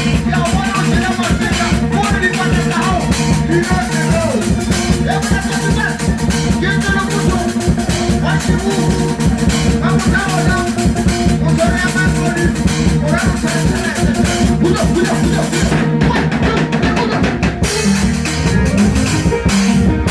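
Band music: a steady drum-kit beat under a wavering melodic lead line. The cymbals and high percussion drop out briefly near the end.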